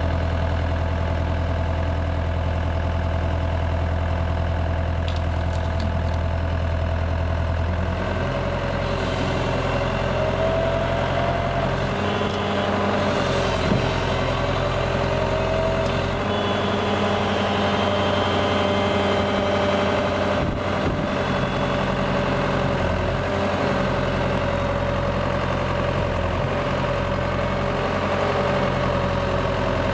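Komatsu PW110 wheeled excavator's diesel engine running steadily while the hydraulics press the outriggers and dozer blade down to lift the machine. The engine note shifts about eight seconds in, and a whine rises and falls from time to time.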